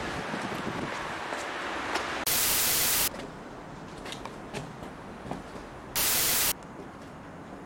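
Two bursts of loud hissing TV static as the monitor's video signal breaks up: a first burst under a second long about two seconds in, and a shorter one about six seconds in as the screen turns to snow. A quieter steady hiss with faint clicks runs underneath.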